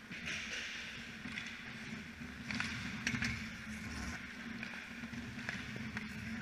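Ice hockey game sounds: skate blades scraping and hissing on the ice, with several sharp clicks of sticks and puck scattered through, over a steady low hum.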